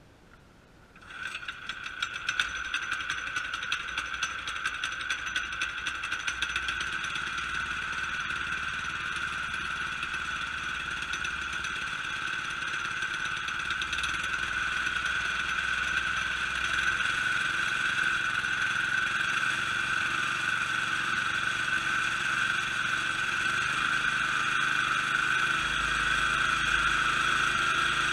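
Harbor Freight Predator 212 single-cylinder engine pull-started, catching about a second in, then running steadily and growing gradually louder.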